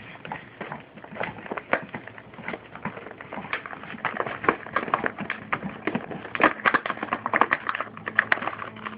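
An American bulldog chewing and ripping at an action figure's cardboard-and-plastic packaging: irregular crackles and tears, growing busier and louder about halfway through.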